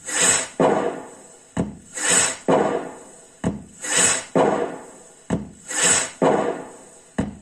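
Firecracker sound effect played by a pixel-LED cracker tree's sound controller. Sharp bangs that tail off into a crackle alternate with swelling whooshes, repeating about every two seconds.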